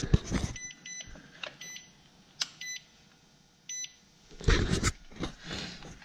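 Digital multimeter's continuity beeper giving short electronic beeps: a quick cluster within the first second, then single beeps about once a second. A louder burst of rustling noise follows about four and a half seconds in.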